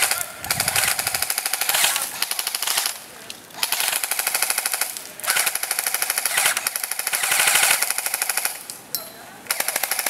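Airsoft rifles firing on full auto: a string of rapid bursts, each a fast even rattle of shots lasting a second or two, with short pauses between the bursts.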